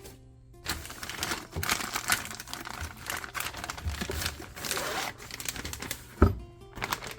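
Tool set's carry bag being handled and opened: a few seconds of dense rustling with rapid scratchy clicks, then one loud thump about six seconds in.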